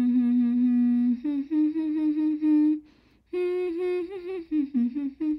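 A woman humming a tune without words: one long held note, then a run of shorter notes a little higher, a brief pause about three seconds in, and the melody picks up again with quicker notes.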